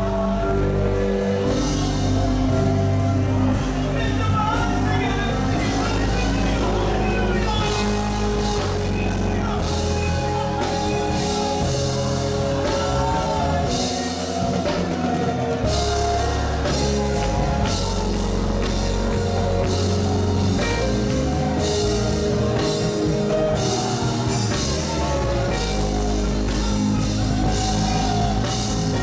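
Live gospel band music with drum kit and bass, a melody line gliding over sustained chords, at a steady full level.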